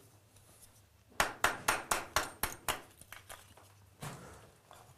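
A mason's trowel knocking on a piece of clay brick: a quick run of about eight sharp knocks, about five a second, starting about a second in.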